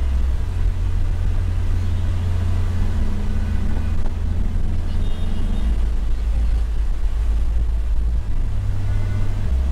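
Toyota HiAce Commuter van's engine and road noise, heard from inside the cabin while driving: a steady low drone. The engine note climbs, then drops about two-thirds of the way through.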